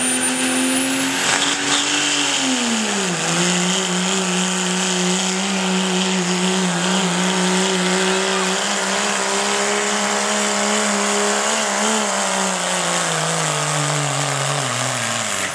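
Turbocharged Dodge Ram Cummins diesel pickup pulling a sled at full throttle, with a high turbo whistle over a steady engine note. The note drops about two seconds in and holds, then sinks steadily near the end as the engine is lugged down under the sled's load, and cuts off.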